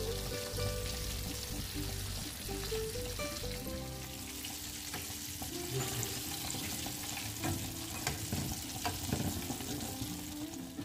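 Coated chicken leg piece deep-frying in hot oil: a steady sizzle, with a few light clicks. Soft background music with changing notes plays along.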